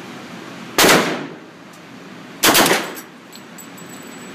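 Heckler & Koch UMP45 submachine gun in .45 ACP firing on full auto: two short bursts about a second and a half apart, each echoing off the walls of an indoor range.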